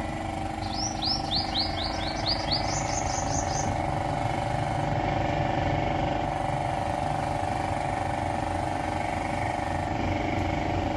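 A bird calls a quick run of about seven high, downward-sweeping notes, then a few higher, faster notes, under a steady low mechanical hum.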